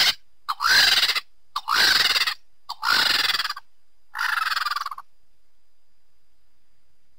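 A made-up creature call standing in for a death's-head hawkmoth: raspy squeals about a second apart, each rising then falling in pitch and most led by a short chirp, stopping about five seconds in.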